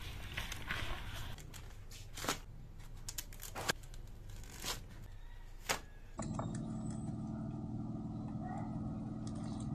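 Wet squishing of hands squeezing grated coconut, then a cleaver chopping banana flower on a wooden chopping board in four sharp knocks about a second apart. From about six seconds in, a steady low hum.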